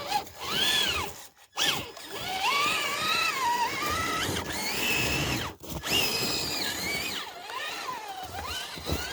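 Traxxas TRX-4 RC crawler's electric motor whining, its pitch rising and falling with the throttle as it climbs through snow. It drops out briefly about a second and a half in and again past halfway.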